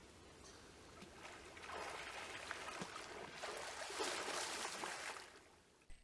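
Water splashing and sloshing as a snorkeler duck-dives, his flippers kicking at the surface; it builds over a couple of seconds, is loudest about four seconds in and dies away near the end.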